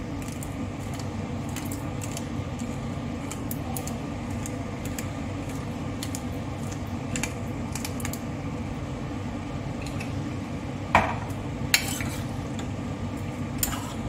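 Black pepper being ground from a twist pepper grinder: light, scattered crunching clicks over a steady low hum, with two sharper clinks about eleven and twelve seconds in.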